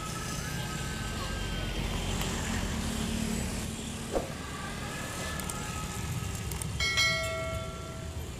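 Steady rumble of road traffic with faint distant voices, a sharp click about four seconds in, and a short high horn-like tone a little before the end.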